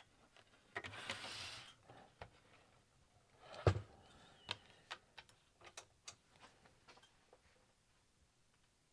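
Quiet handling noise as a benchtop oscilloscope is put back together: a short scraping rustle about a second in as the circuit board slides back into its case, a dull thud near the middle, then a scatter of light clicks.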